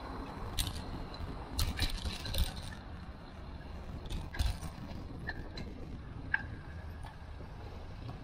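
Bicycle riding along a city street: steady wind and road rumble on the microphone, broken by a handful of sharp clicks and rattles from the bike, most of them in the first half and again about four and a half seconds in.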